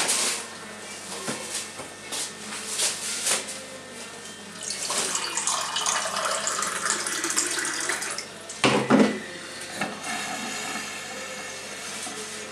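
Water poured from a metal kettle into a drinking glass, a steady splashing pour that starts about four and a half seconds in and lasts about four seconds. Two loud knocks follow, and a sharp knock and a few small clicks come before the pour.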